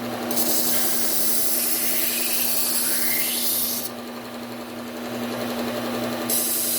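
Low-speed belt sander running with a steady hum while a steel kitchen knife edge is ground on a coarse Cubitron 120-grit belt: a grinding hiss for about four seconds, a pause of about two seconds with only the motor, then the grinding starts again near the end. The passes are raising a burr along the edge.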